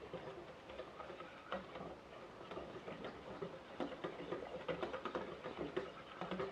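Wire whisk beating flour-and-water batter in a metal saucepan: a quiet, irregular run of light ticks and scrapes as the whisk strikes the pan, growing busier after about four seconds.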